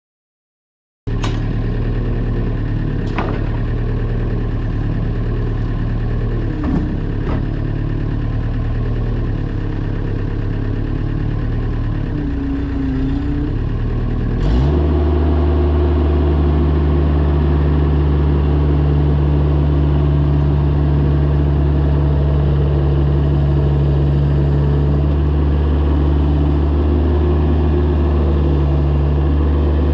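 Mini excavator engine running steadily, with a few light knocks in the first several seconds. About halfway through it speeds up and settles into a louder, higher steady run.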